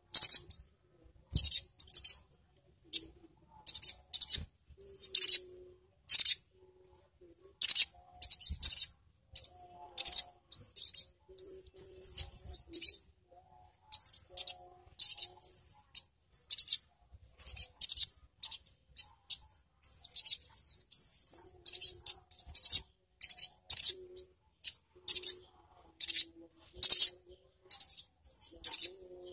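Caged sunbird (sogon) singing: rapid, high-pitched twittering chirps in short bursts, repeated over and over with brief pauses.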